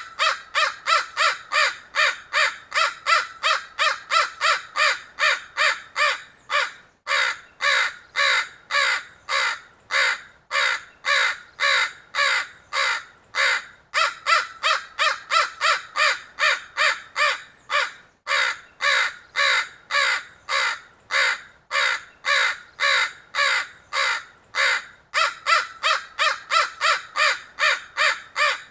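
Crows cawing over and over: short, harsh caws at about two to three a second, in long runs broken by brief pauses.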